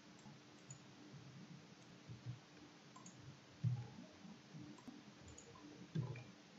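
Faint, irregular clicking of a computer keyboard being typed on, with a couple of louder clicks about a third of the way in and near the end, like mouse clicks.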